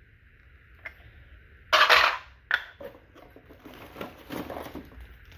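Plastic toy train track and tunnel pieces clattering and knocking as they are handled and set down. A loud rattle about two seconds in, a few sharp clicks around it, then lighter clatter.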